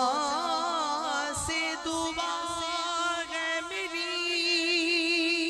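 Male naat reciter singing a long melismatic phrase into a microphone, his voice wavering up and down, then settling into a long held note for the second half.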